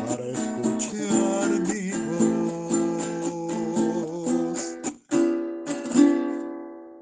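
Venezuelan cuatro strummed in waltz time, closing the song. The strumming breaks off briefly about five seconds in, then two final chords follow, the last one left ringing and fading away.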